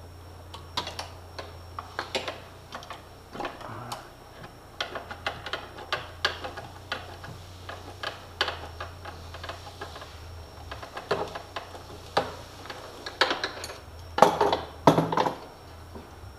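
Irregular runs of sharp metal clicks and taps from a hand tool turning out 5 mm Allen bolts on a Polaris 850 snowmobile engine, loudest in a cluster near the end, over a steady low hum.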